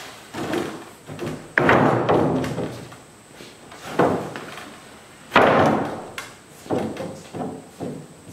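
A large plywood sheet being set down and shifted on a wooden 2x4 table frame: a string of wooden thumps and knocks. The loudest come about a second and a half in and again about five and a half seconds in, each trailing off in the room's echo.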